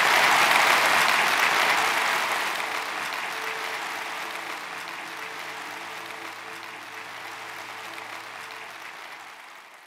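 Audience applauding, loudest at the start and fading away, with a few held notes of music coming in under it about four seconds in.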